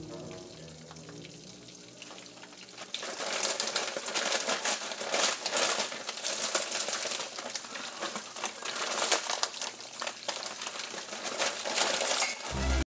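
Frozen chopped broccoli poured from a bag into a hot saucepan, sizzling and crackling loudly from about three seconds in. The sizzle cuts off abruptly just before the end.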